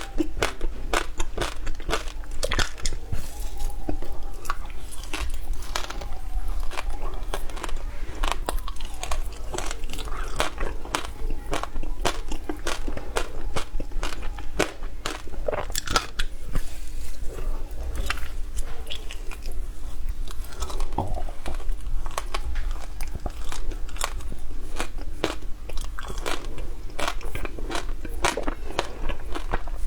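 Close-up crunching of frozen shaved ice: a person biting and chewing it, with a continuous, irregular stream of sharp crunches.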